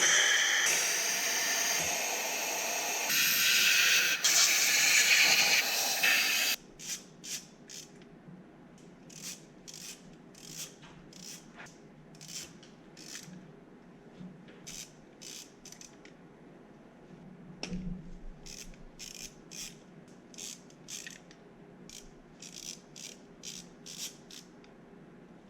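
A loud spray hiss for about six seconds, cutting off suddenly, then a ratchet wrench clicking in short, irregular strokes.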